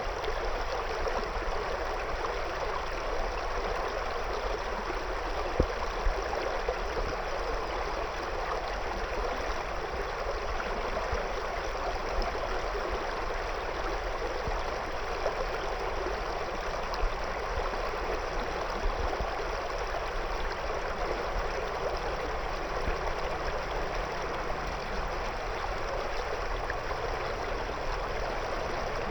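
River water flowing and gurgling around stones in a steady rush, with small splashes now and then.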